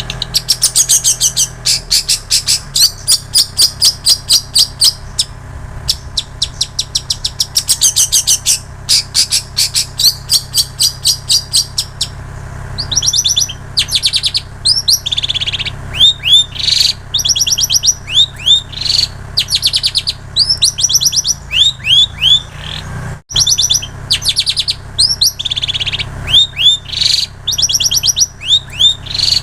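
Long-tailed shrike singing a loud, fast chattering song filled with imitations of plain prinia and canary: first runs of rapid, evenly repeated high notes, then from about halfway through, phrases of curving, downward-sweeping notes. The song cuts out for an instant about 23 seconds in.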